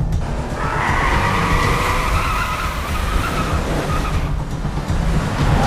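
Car tyres squealing in one long skid lasting about three and a half seconds, starting about half a second in, over a steady low engine rumble during a high-speed car chase.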